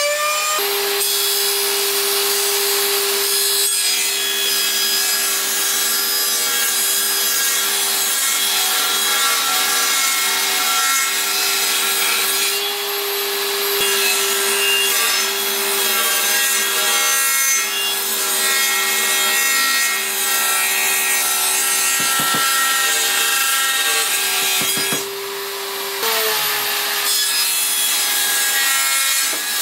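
Power saw running and cutting through wooden boards: a steady motor whine under load, mixed with the noise of the blade in the wood. It drops off briefly near the end and then runs again.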